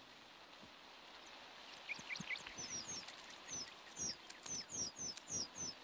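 Scissor-tailed flycatchers at the nest giving short, high chirps. The chirps start about two seconds in and repeat several times a second over a faint outdoor hiss.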